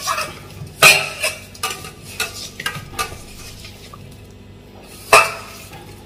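A hand mixing masala-coated sardines in a stainless steel bowl. Sharp metallic clinks and knocks ring against the bowl, loudest about a second in and again near the end, with smaller knocks in between.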